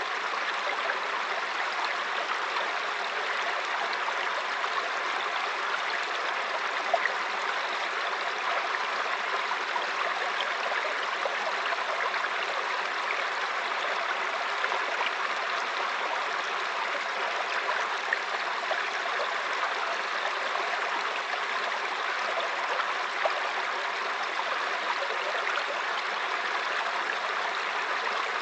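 Mountain stream rushing and babbling over rocks, a steady even wash of water with small splashes here and there.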